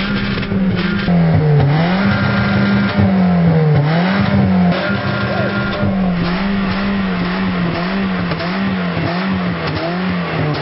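Volkswagen hatchback's engine revved hard and held at high revs, its pitch repeatedly dipping and climbing back as the accelerator is pumped, with a few slow dips at first and quicker, even pulses in the second half.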